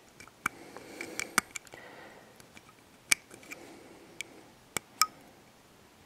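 Hobby knife blade trimming a small plastic battery-connector cap: a string of small sharp clicks at uneven intervals as the blade snicks and scrapes through the plastic.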